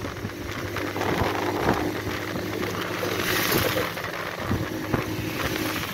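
Motorcycle engine running steadily while riding, with wind rushing over the microphone and road noise underneath.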